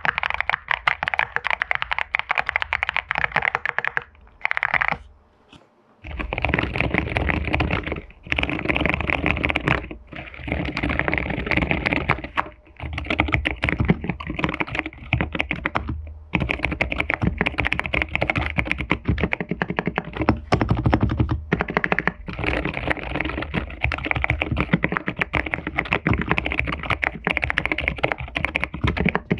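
Fast typing on a mechanical keyboard, close up. It starts on the aluminium EPOMAKER MS68 with EPOMAKER Flamingo linear switches, a clacky, high-pitched kata-kata. After a brief pause about five seconds in, typing continues on a keyboard with EPOMAKER Sea Salt silent switches, which sounds fuller and lower.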